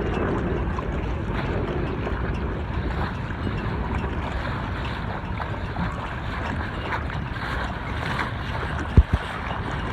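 Wind buffeting the microphone over choppy lake water, a steady rushing noise. Two sharp low thumps come close together about nine seconds in.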